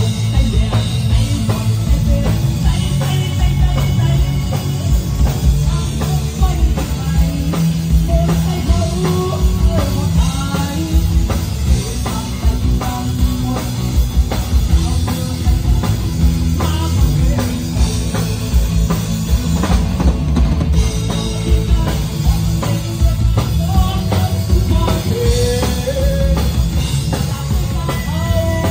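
Rock-style band music with a drum kit keeping a steady beat.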